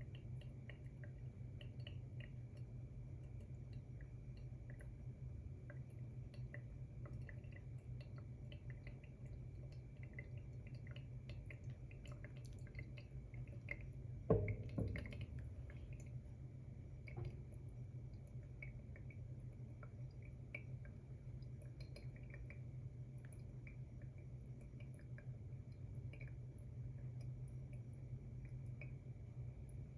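Faint, irregular drips of brewed coffee falling through a paper filter in a pour-over dripper, over a steady low hum. About halfway through, the gooseneck kettle is set down on the table with a single sharp knock, and a softer knock follows a few seconds later.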